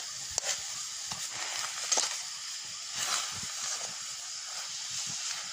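Wild mushrooms and leaves sizzling in a wok over a wood fire: a steady frying hiss with a few sharp clicks.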